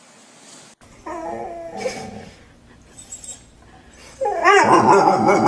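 A dog whining in drawn-out cries that waver in pitch: a shorter cry about a second in, then a louder, longer one near the end.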